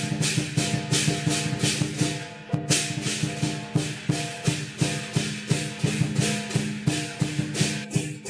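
Chinese lion dance percussion: drum and clashing cymbals beating a steady rhythm of about two to three strokes a second, with the cymbals dropping out briefly about two and a half seconds in.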